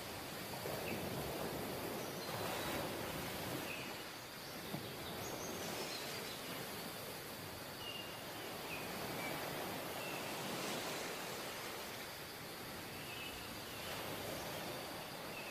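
Sea surf breaking and washing up a sandy beach: a steady rushing that swells and eases with the waves. A few faint short high chirps come through now and then.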